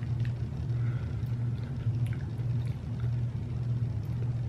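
Steady low hum of room background noise, with a few faint soft clicks of someone chewing a bite of fruit.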